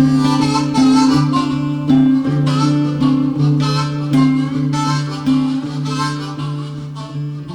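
Background music: a harmonica solo over strummed acoustic guitar, in an instrumental break of a folk-country song, fading slightly near the end.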